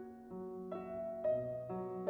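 Slow background music: sustained notes, with a new note or chord starting about every half second.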